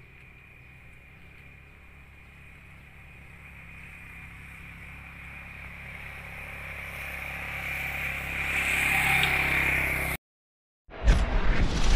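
Mitsubishi Canter dump truck's diesel engine running under throttle, growing steadily louder over about ten seconds. It cuts off abruptly, and a moment later a loud burst of outro sound effect begins.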